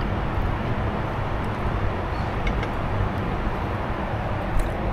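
Steady cabin noise of a Boeing 747-8 airliner in cruise: a constant low rumble of airflow and engines. A couple of light clicks sound about halfway through and near the end.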